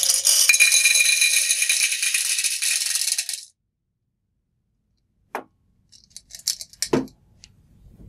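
Glass marbles poured from one glass beaker into another: a dense run of individual clinks that stops abruptly about three and a half seconds in. Later come two sharp knocks with a few light clicks between them.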